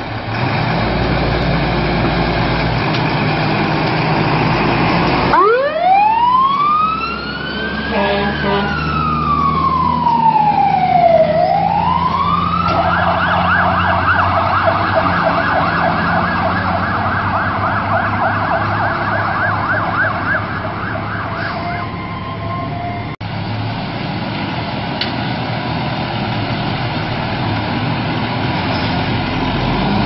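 Fire truck siren: about five seconds in it winds up steeply, falls and rises once, then switches to a fast yelp for about eight seconds before stopping, over the truck's diesel engine. Later the engine alone, growing louder near the end as a fire truck drives close past.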